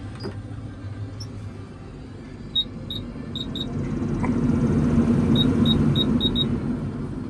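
Climate-control panel in a Komatsu machine's cab beeping at each button press: four short beeps, then five more. Meanwhile the cab's blower fan rises to a loud rush and falls back, over a steady low engine hum.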